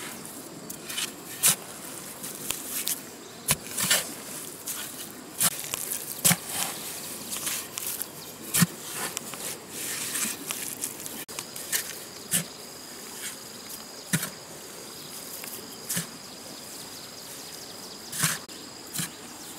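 A hoe's metal blade chopping and scraping into damp earth, in irregular strikes about once a second. Insects buzz steadily behind it, and a steady high insect whine joins in about halfway through.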